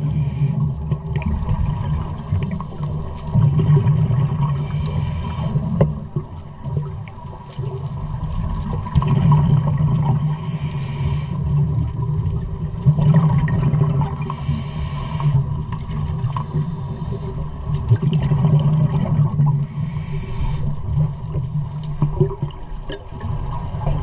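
Scuba diver breathing through a regulator underwater: a hissing inhalation about every five seconds, five breaths in all, with the bubbling rumble of exhaled air in between.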